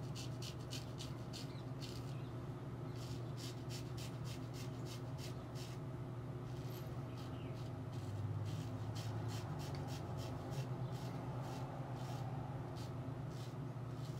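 Straight razor scraping lathered stubble off the cheek and jaw in runs of short strokes, with brief pauses between runs, over a steady low hum.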